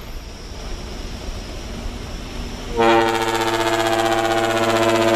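Truck cab rumble, then about three seconds in a loud truck horn starts and holds as one long, steady chord of several tones.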